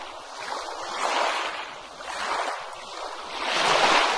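Ocean surf on a beach: waves breaking and washing in and out in slow swells, with a louder surge about a second in and a bigger one near the end.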